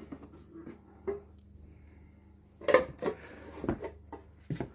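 Hard little knocks and clinks of a boxed souvenir being taken out and handled, a few separate clatters, the loudest about halfway through.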